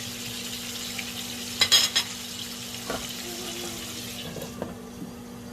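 Pork chop sizzling as it fries in butter and olive oil, the hiss thinning out a little past four seconds in. A short burst of metal clatter against the pan comes about two seconds in, over a steady low hum.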